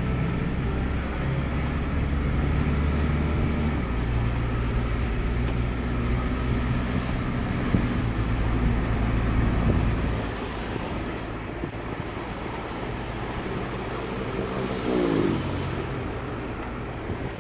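Car engine and road noise heard from inside a moving car, a steady low hum that gets quieter about ten seconds in. Around fifteen seconds in, an engine note briefly rises and falls.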